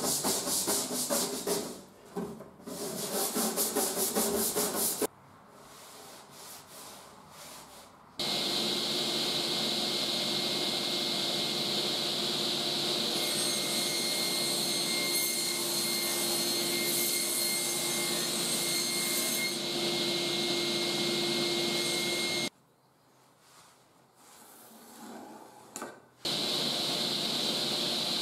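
A hand tool rubbed in quick, even back-and-forth strokes over a clamped, glued-up wooden door panel, in two bursts. Then a large sliding-table circular saw running steadily with a low hum and a high whine. The saw sound stops abruptly for a few seconds and then starts again near the end.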